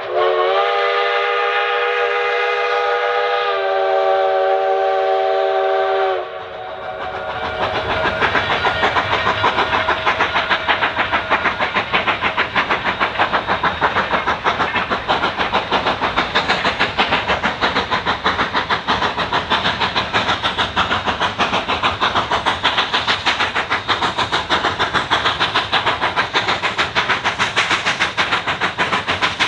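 A narrow-gauge coal-fired steam locomotive blows its multi-note chime whistle in a long blast, which drops slightly in pitch partway through and stops about six seconds in. The locomotive's exhaust then chuffs in a fast, even beat, working hard under heavy black smoke.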